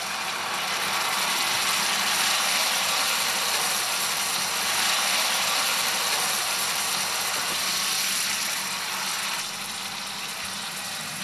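Sherry hitting a hot frying pan of mushrooms in olive oil, sizzling hard as the liquid boils off in steam. The sizzle builds over the first couple of seconds, holds steady, and eases a little near the end.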